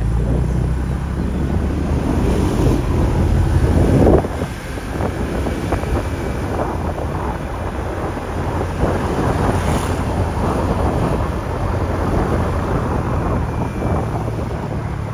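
Wind buffeting the microphone of a camera held on a moving motor scooter, over the scooter's engine and road noise. It is loudest for the first four seconds, then eases slightly.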